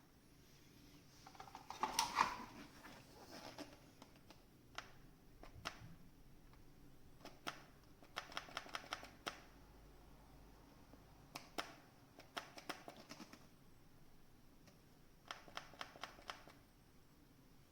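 Faint light clicks and taps of hard plastic being handled, coming in quick runs of several clicks at a time, from a cordless handheld vacuum cleaner that is not running.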